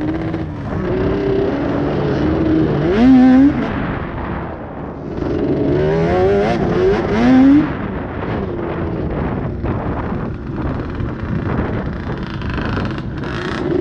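Sport quad (ATV) engine being ridden on a sand trail, revving up and easing off as the throttle changes, with louder surges about three seconds in and again around six to seven seconds in. A steady rush of wind and tyre noise runs under it.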